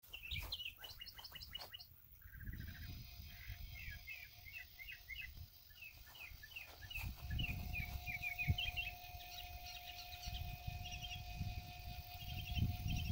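Small songbirds chirping in quick series of short, high notes over a low rumbling noise, with a single knock past the halfway point and a faint steady hum underneath from about two seconds in.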